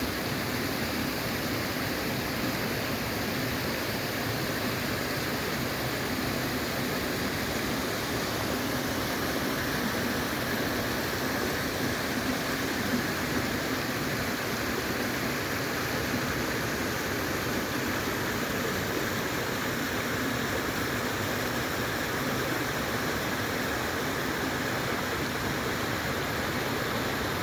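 Rushing water of a rocky mountain valley stream: a steady, even rush of cascading water that holds unchanged throughout.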